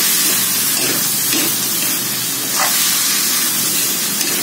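Chicken and button mushrooms sizzling in a wok over a gas flame: a steady frying hiss, with a few brief scrapes as a metal spatula stirs them.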